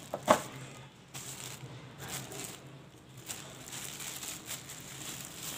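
Thin plastic wrap crinkling and rustling in irregular bursts as it is pulled off and lifted out of a box, with one sharp tap about a third of a second in.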